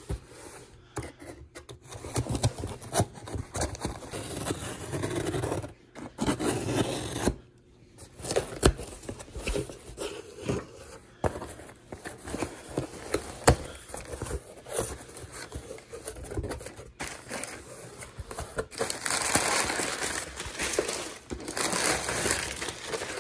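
A multitool blade slitting and scraping along the packing tape of a cardboard box, with tearing and the flaps being pulled open. Near the end, crumpled kraft packing paper rustles and crinkles as it is pulled out of the box.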